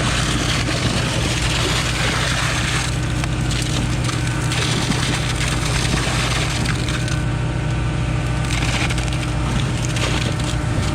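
Concrete pump truck (Concord 40-metre Z-boom) running at pumping revs as it pushes concrete through the hose: a steady engine hum under a loud, dense noise.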